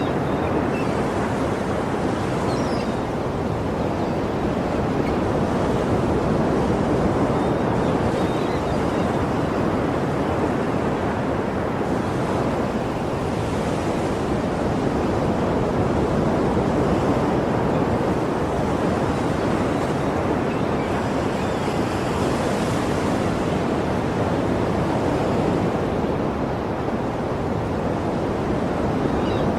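Sea waves washing on the shore in a steady, continuous rush, swelling and easing gently.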